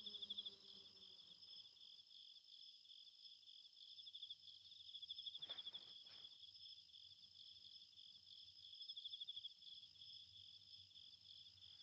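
Faint night-time cricket chirping, steady and high-pitched, swelling in pulsing runs twice. A soft falling tone fades out in the first second, and two faint clicks come near the middle.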